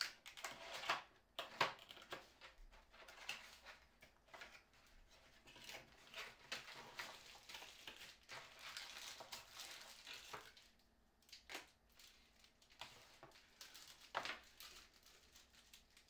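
Cardboard keyboard box being handled: its inner flap is folded open, with rustling, scraping and light knocks of card on card. There is a quieter pause about halfway through.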